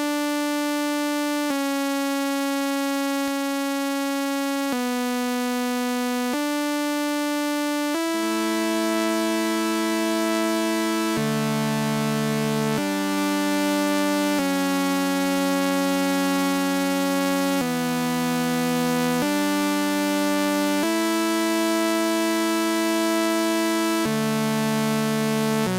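Atmospheric keyboard pad preset on the V-Station software synthesizer playing slow sustained chords that change every second or two, with a lower line coming in about eight seconds in.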